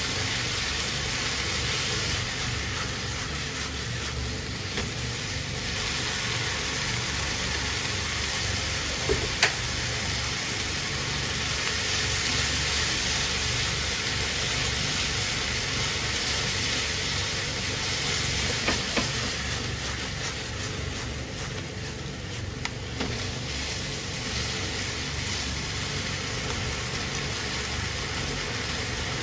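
Udon noodles with tuna, onion and green onion sizzling steadily in an oiled frying pan while being tossed with tongs, with a few sharp clicks of the tongs against the pan.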